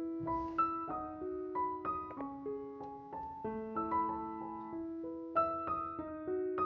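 Soft background piano music: single notes struck one after another in a slow melody, each left to ring.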